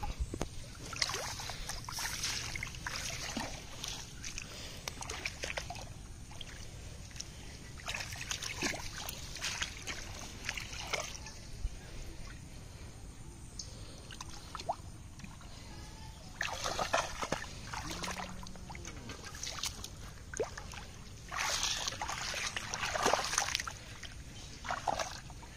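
Shallow muddy water splashing and sloshing as hands grab at fish, in irregular bursts, the loudest about two-thirds of the way through and near the end.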